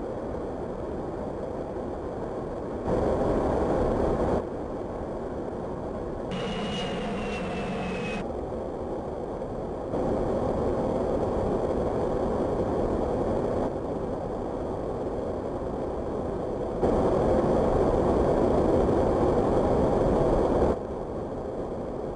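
Jet aircraft in flight: steady jet engine and airflow noise, its level jumping up and down abruptly several times as the footage cuts between shots. About six seconds in, a high whine slides slightly downward for about two seconds.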